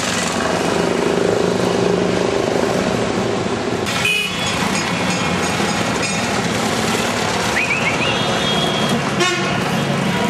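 Busy street traffic: motorcycle and auto-rickshaw engines running, with short horn toots about four seconds in and again near the end.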